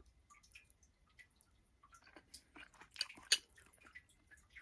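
Faint, wet mouth sounds of someone chewing food, with scattered small clicks and two sharper clicks about three seconds in.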